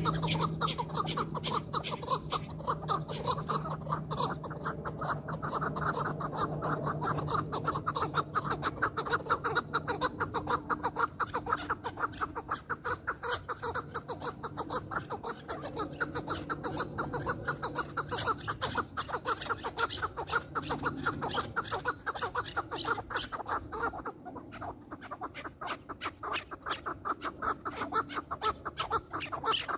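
Chukar partridges calling: a fast, unbroken run of clucking chuk-chuk notes, several a second.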